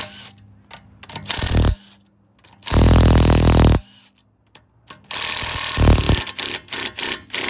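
DeWalt cordless impact wrench hammering on a car wheel's lug nuts in three bursts of about a second each, followed by several short blips near the end.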